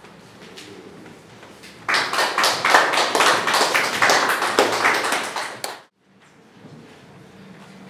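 A small group of people applauding, starting about two seconds in and cutting off suddenly about four seconds later.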